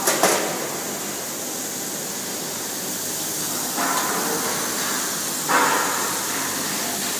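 Water rushing and churning across a stainless steel tank as its surface is flushed, a steady hiss with two louder surges about four and five and a half seconds in.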